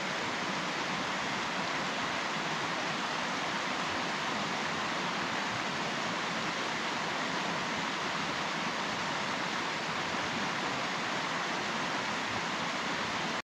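A fast mountain river rushing steadily over a steep, rocky bed, a constant even rush of water that stops abruptly near the end.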